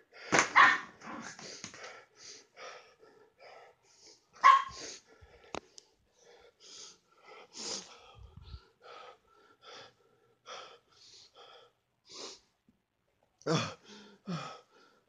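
A person's quick, heavy breathing, short breaths about two to three a second and uneven, with sharper, louder gasps near the start, about four and a half seconds in, and near the end.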